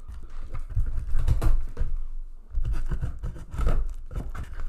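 Box cutter slicing through the packing tape along the top seam of a cardboard box, in several scratching, tearing strokes, with dull thuds from the box being pressed and handled.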